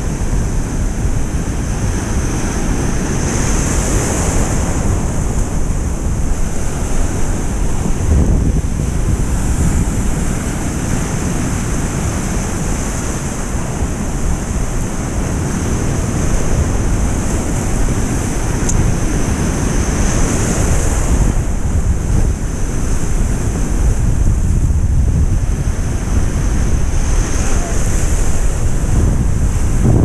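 Wind buffeting the microphone over a steady rush of breaking surf and foaming whitewater.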